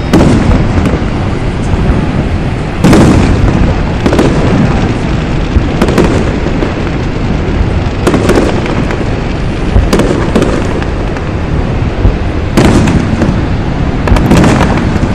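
Fireworks display: aerial shells bursting one after another, loud booms every second or few with some near-double bangs, over a steady low rumble.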